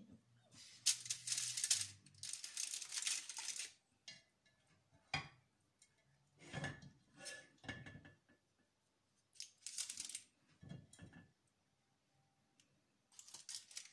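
Aluminium foil crinkling in several bursts as it is handled, with a few light knocks and handling sounds in between.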